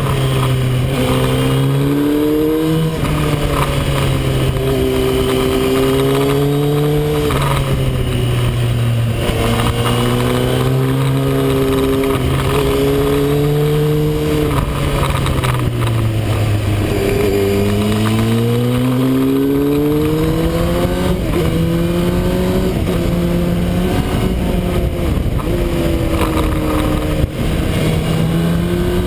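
Motorcycle engine running under changing throttle, its pitch climbing and falling again and again as it accelerates and eases off. A steady rush of wind noise lies underneath.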